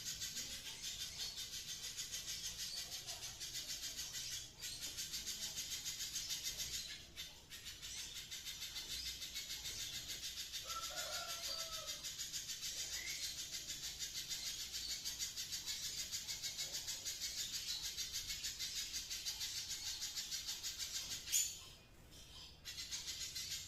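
Spiderhunter in full, vigorous song: a rapid unbroken run of high, sharp repeated notes, about four a second, with two brief pauses and a pause of about a second near the end.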